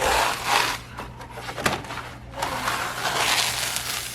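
Sheet of adhesive vinyl being peeled off a sticky Cricut cutting mat, crackling and rustling in two stretches, one at the start and one from about halfway through.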